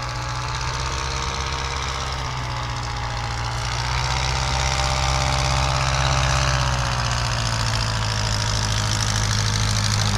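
Bristol Boxkite replica's engine running steadily as the aircraft flies past, growing louder about halfway through and easing off again, with a slight shift in pitch.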